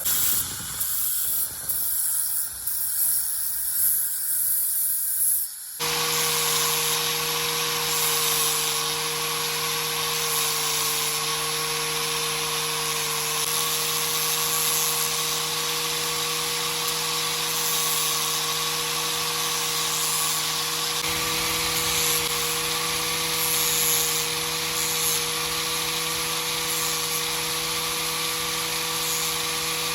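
Small electric power tool, such as a rotary tool, running at a steady speed with an abrasive hiss as it works on the metal of a rusty pocket knife. It starts about six seconds in, after a few seconds of high, uneven hissing.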